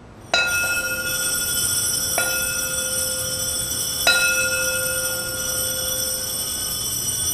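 Altar bell struck three times, about two seconds apart, each strike ringing on with a long metallic tone, marking the elevation of the chalice at the consecration.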